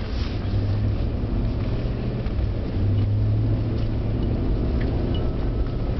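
Car interior noise while driving: a steady low engine and road drone with tyre hiss.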